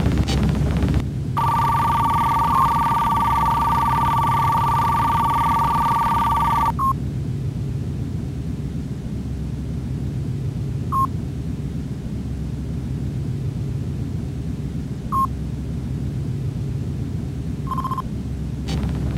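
Synthesized computer-interface tones: a steady two-note electronic tone held for about five seconds, then short single beeps every few seconds, the one near the end a little longer, all over a steady low electronic hum.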